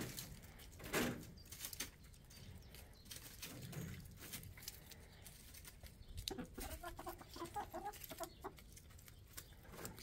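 Domestic hens clucking, with a run of short repeated clucks from about six to eight and a half seconds in, over scattered light clicks and taps. There are a couple of louder knocks in the first second.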